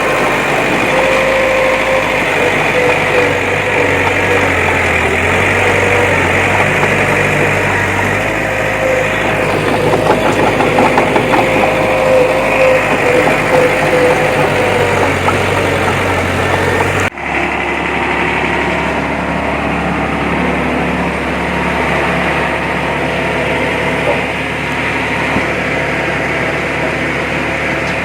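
Heavy earthmoving machinery's diesel engine running steadily with a high whine over the engine noise. About two-thirds of the way through it breaks off abruptly into a different, steadier engine sound.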